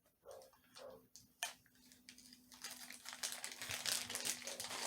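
Crinkling and rustling handling noise from a toy and its packaging being handled: a few separate clicks at first, then, from about halfway through, a dense run of crackly ticks. A faint steady hum sits underneath.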